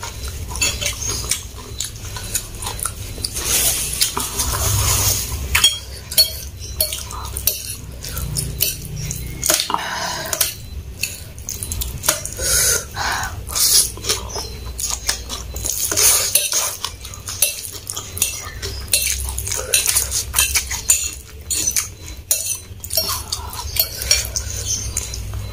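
Metal fork clinking and scraping against a ceramic bowl as fried instant noodles are forked up, amid close-miked chewing.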